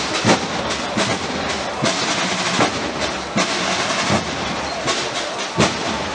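Procession band drum beating a slow, even march, about one stroke every three-quarters of a second, over a steady hissing wash of background noise.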